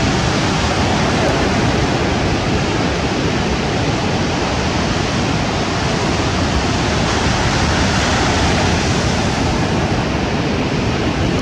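Steady rush of sea surf breaking and washing up a pebble beach.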